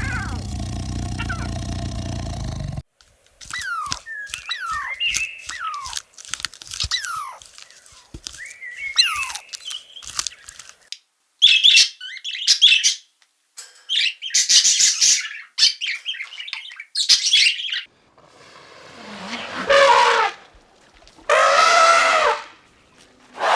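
A run of animal calls. A steady noisy sound stops about three seconds in, and birds chirp with quick falling notes. Harsh, raspy calls follow, then near the end long calls that rise and fall in pitch.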